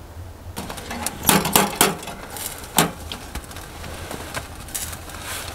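Sharp knocks and clicks of metal and wood at a small titanium wood-burning stove as it is handled with gloved hands, over a crackling fire. The loudest knocks come about a second in and again near three seconds.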